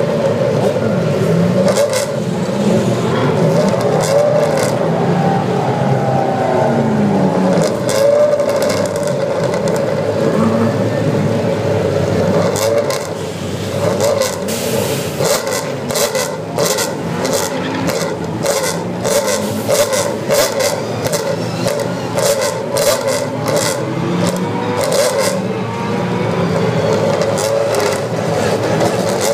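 Several GT race cars' engines running at idle in the pit lane, with repeated throttle blips that rise and fall in pitch, waiting for the pit lane to open.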